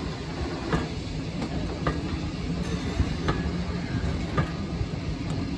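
Railway passenger coaches rolling past, their steel wheels rumbling steadily on the track with several sharp clicks about a second apart.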